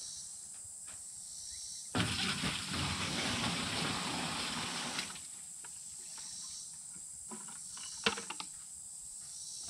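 Water poured from a bucket into a galvanized metal stock tank, splashing for about three seconds. A sharp knock with a few lighter clicks follows near the end.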